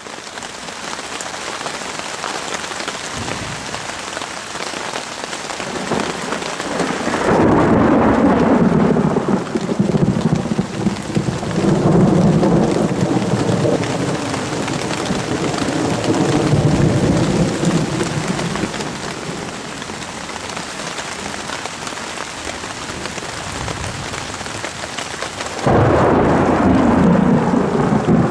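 Thunderstorm: steady hiss of rain, with long rumbles of thunder that swell and fade several times after the first few seconds. Near the end the rumble comes back suddenly louder.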